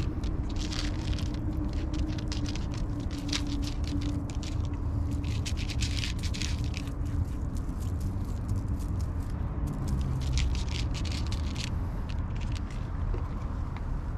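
Cat crunching dry kibble: quick, irregular crunches in clusters, over a steady low rumble.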